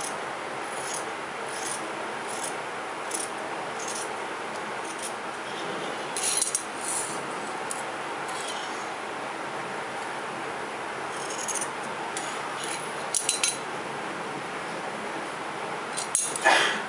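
Tailor's scissors snipping through cotton fabric in a run of short, evenly spaced cuts, then cloth rustling as the cut fabric is folded and smoothed by hand, with the loudest rustles near the end.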